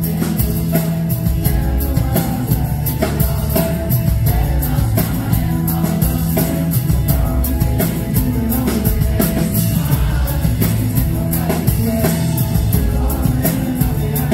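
Rock band playing live: a male voice singing over acoustic and electric guitars, keyboards and drums, with a steady beat.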